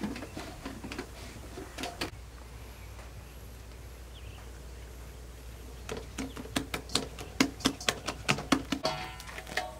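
A run of quick, sharp taps, about three a second, starting about six seconds in after several quiet seconds.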